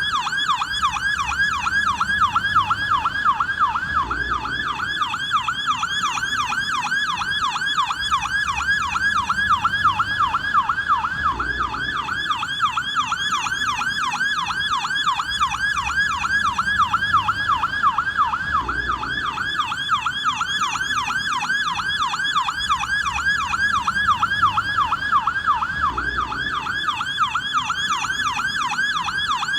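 American police car's electronic yelp siren, wailing continuously in rapid up-and-down sweeps several times a second.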